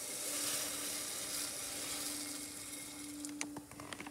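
Dry couscous poured into a saucepan of boiling water: a steady hissing rush of grains and bubbling water that eases after about two seconds, with a faint steady hum underneath and a few light clicks near the end.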